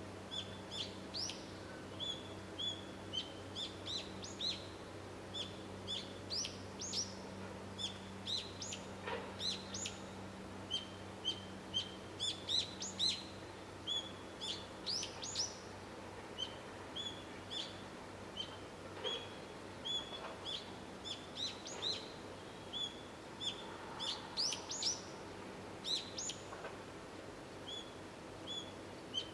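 Small birds chirping: many short, high calls, often a few a second, some sliding quickly down in pitch, over a faint steady low hum.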